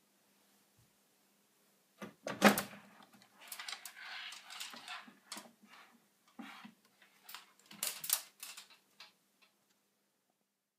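Plastic clacks and knocks from handling the detergent drawer on a Bosch washing machine: a sharp clack about two seconds in, a rustling slide in between, and a few more clicks near the end.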